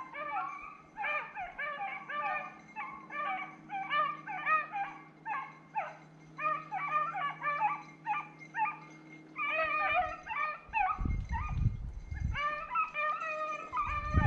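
A pack of rabbit-hunting dogs baying in many short, overlapping calls, several each second, while running a rabbit on its scent. Low rumbles come in about eleven seconds in and again near the end.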